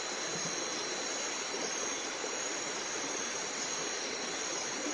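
Steady night chorus of rainforest insects: a continuous high-pitched buzzing over an even hiss.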